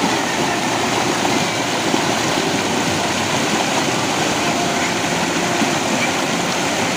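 River rapids rushing steadily over rocks, white water churning right at the microphone.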